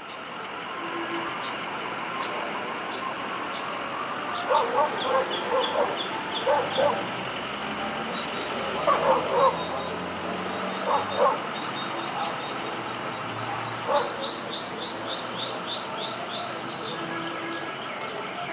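Birds chirping in quick, repeated high notes over a steady outdoor hiss, with several clusters of louder, lower animal calls.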